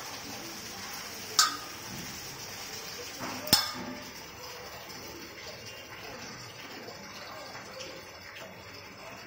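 Steady rain falling, a constant hiss, with two sharp clicks about one and a half and three and a half seconds in.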